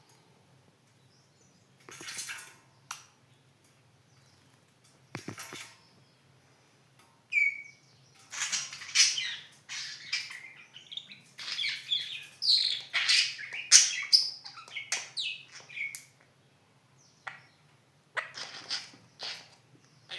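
Pet budgerigars chirping and chattering: a couple of short bursts and a brief whistled note, then a long stretch of busy, overlapping chirps, thinning to scattered calls near the end.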